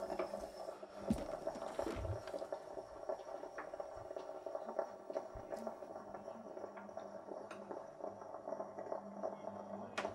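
Stovetop moka pot on the boil, gurgling and hissing steadily as it spits steam, with scattered small pops and clicks. This sputtering marks the end of the brew.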